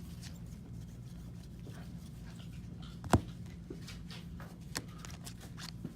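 Faint handling of trading cards during a box break, with one sharp click about three seconds in and a smaller one near five seconds, over a steady low hum.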